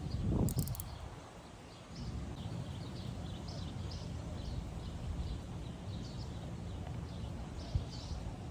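Small birds chirping repeatedly in short high notes, over a steady low rumble.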